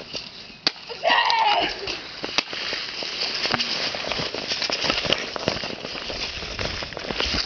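Footsteps pushing through dry leaves and brush, a dense, continuous crackle and rustle of trampled undergrowth. A voice calls out briefly about a second in.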